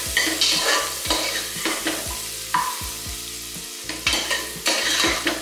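Carrot and beetroot frying in butter in a pressure cooker: a steady sizzle, with irregular scraping strokes of a spoon stirring against the pot.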